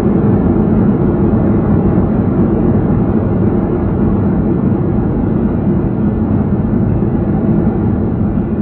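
Cabin noise of an airliner decelerating on the runway just after touchdown: a loud, steady rumble of engines and rolling wheels that eases slowly near the end as the plane slows.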